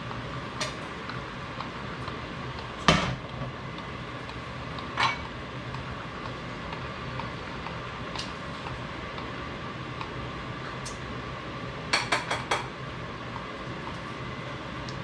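Kitchen dishes and utensils clinking and clattering during plating: scattered single knocks, the loudest about three seconds in, and a quick run of four clicks near the end, over a steady hum.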